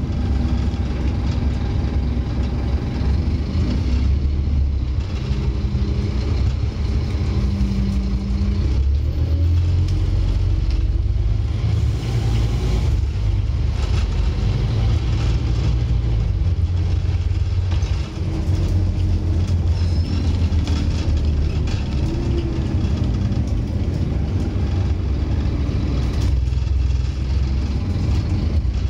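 Scania N230UD OmniCity bus's five-cylinder diesel engine heard from inside the passenger saloon as the bus drives along, a deep, loud drone whose pitch rises and falls several times as the bus accelerates and eases off.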